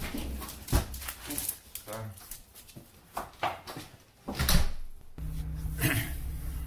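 Work boots stamping and scuffing on a tile floor, with rustling and knocks, a brief whine about two seconds in and a loud thump just before the sound cuts. About five seconds in it switches to the steady low hum of a car's cabin while driving.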